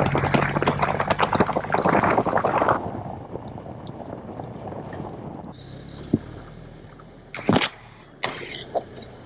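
Four-wheel-drive truck under way on a rough track: engine hum under a dense rattling, crackling noise for about the first three seconds, then much quieter, with a few sharp knocks near the end.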